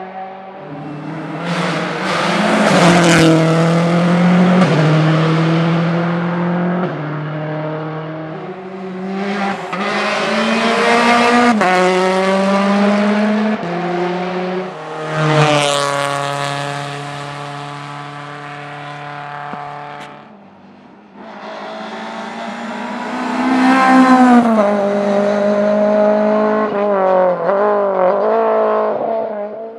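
Rally cars at full stage pace, engines revving hard and climbing through the gears with repeated lifts and downshifts. The engine fades out about two-thirds of the way in before the next car arrives and revs up.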